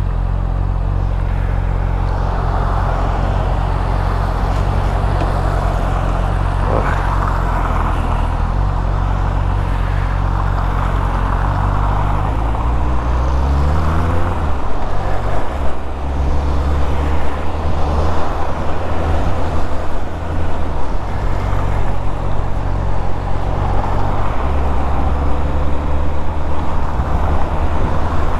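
Motorcycle engine running while riding along, with wind noise over it. About halfway through the revs climb as the bike accelerates, then drop off and settle back to a steady run.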